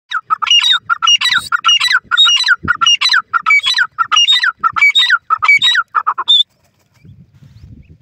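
Grey francolin calling loudly: a rapid, repeating run of shrill ringing phrases, about two a second, that stops abruptly after about six seconds. Faint low scuffling follows near the end.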